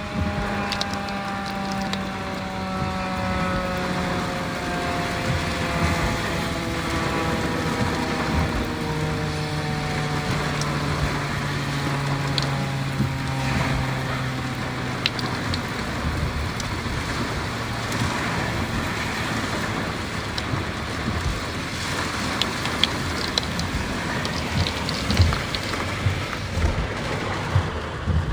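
Federal Signal 2001-130 outdoor warning siren winding down, its tone sliding slowly lower and fading over about fifteen seconds as the rotor coasts to a stop; the siren is running on DC power with the mains power out. A steady noisy hiss runs underneath, with a few sharp clicks near the end.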